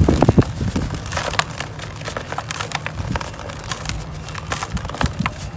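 A soaked sand-cement chunk crumbling and crunching apart in the hands over a basin of water: a steady run of sharp crackles with small splashes.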